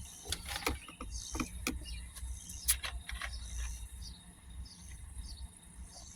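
Insects buzzing steadily over a low background rumble, with a handful of sharp clicks in the first three seconds.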